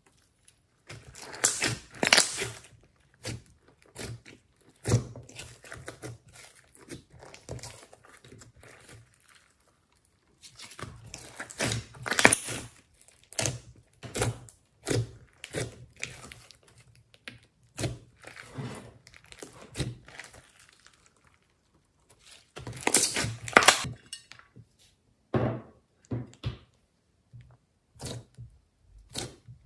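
Hands squeezing and kneading a large mass of mixed slime: sticky crackles, pops and squelches in irregular bursts, with a couple of short pauses.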